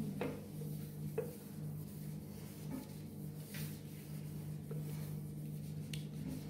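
Steady low hum with a few faint light taps and rubbing, handling sounds, spaced a second or so apart.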